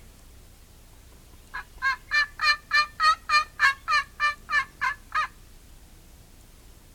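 Wild turkey yelping: a run of about twelve evenly spaced, down-slurred notes, roughly three a second, lasting a little under four seconds.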